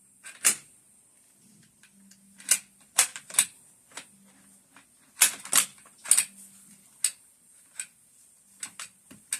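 Irregular sharp metallic clicks and clacks of an AK rifle's bolt carrier group being worked against the receiver while it is refitted, in clusters with short pauses between.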